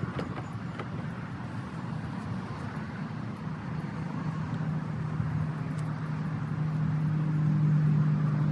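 Honeybees buzzing around an opened hive, with one low steady drone growing louder about halfway through as a bee hovers close.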